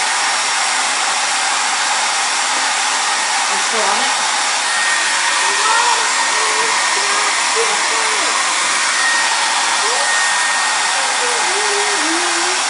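Handheld hair dryer blowing steadily at one speed, directed onto crayons to melt the wax. A faint high whistle comes in about five seconds in and fades out again a few seconds later.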